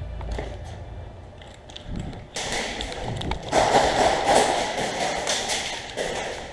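A run of irregular thumps, taps and sharp knocks over a rustling, scuffing noise, louder from about two seconds in, like handling and movement noise.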